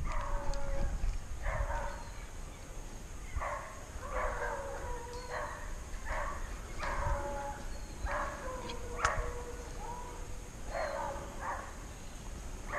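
Hunting dogs baying in the brush, a run of repeated calls about one a second, each falling in pitch. The hunter takes it to mean the pack has caught the quarry.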